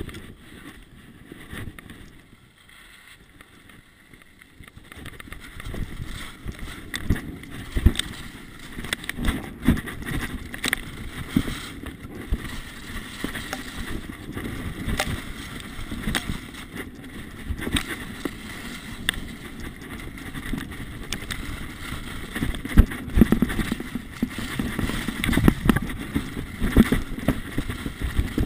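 Skis sliding and scraping over packed snow on a downhill run, mixed with wind on the microphone and frequent knocks. Quieter for a few seconds near the start, then louder and rougher once the run picks up.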